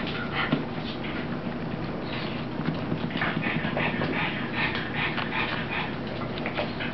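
Pug puppy and an adult dog playing on a hard wooden floor: dog noises with many quick, irregular clicks and taps.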